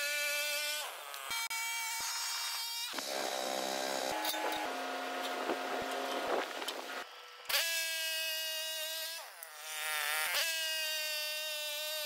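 Woodland Mills portable band sawmill running: a high, buzzing whine like a mosquito. The pitch jumps to a new steady note several times, with a couple of brief falling glides near the end.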